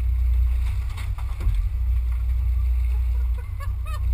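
Steady low rumble of a small fishing boat on the water. Near the end come a few short rising-and-falling cries.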